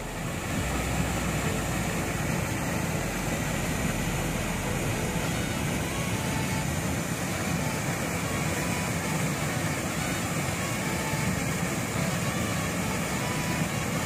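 Steady rushing of a river pouring over a small waterfall and through rocky rapids.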